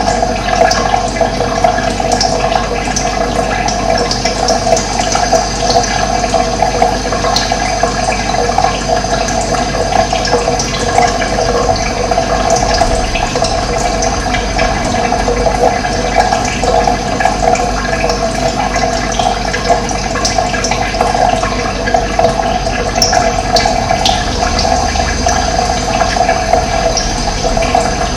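Running water flowing steadily and evenly, with a few faint bird chirps now and then.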